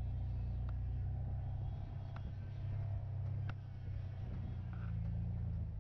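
Pickup truck engine running steadily at low speed, heard from inside the cab, with a few faint clicks.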